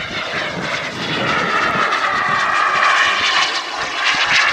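Jet engine of a radio-controlled model F18 Hornet running in flight, a loud hissing rush with a whine that slides slowly down in pitch.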